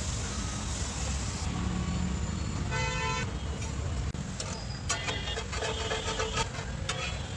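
A vehicle horn honks once, briefly, about three seconds in, over a steady street-noise background. A hiss fills the first second and a half, and light clicks and clatter come in near the end.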